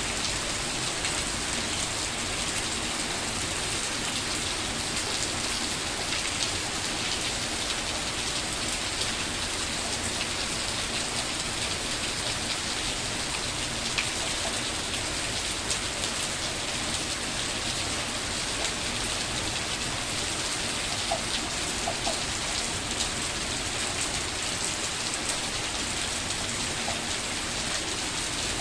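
Steady rain falling on a surface, with occasional sharper drops standing out.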